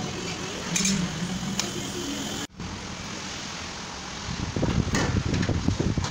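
A washing machine's plastic outer tub and drum being handled and set into the cabinet frame: a few light knocks over a steady background hum, then irregular low thuds and rumbling from about four seconds in.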